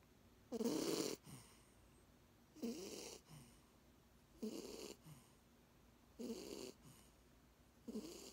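Snoring in a steady sleep rhythm: five snores about every two seconds, each followed by a softer breath out.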